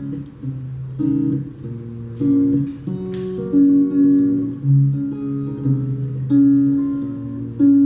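Acoustic guitar playing a song's instrumental intro: a run of plucked notes, each left to ring, in a steady pattern.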